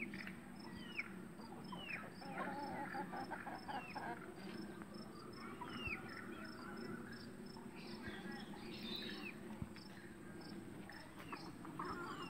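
Chicken-run ambience: a bird gives short, high, downward-sweeping chirps about once a second over a cricket's steady ticking chirps and a faint high insect whine. Chickens give soft calls, most clearly a few seconds in.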